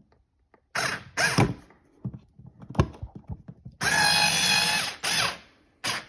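Power drill driving a cover-plate screw: a few short bursts, then a steady whine of about a second, then two brief bursts.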